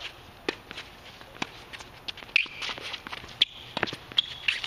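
Tennis point being played on a hard court: sharp pops of the ball off racket strings and the court surface, a few seconds apart, with the players' quick footsteps and shoe scuffs.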